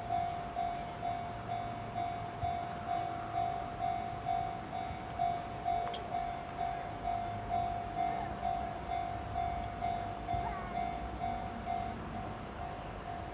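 Japanese level-crossing warning alarm ringing a repeated ding about twice a second, over the low rumble of a train passing the crossing. The ringing stops near the end.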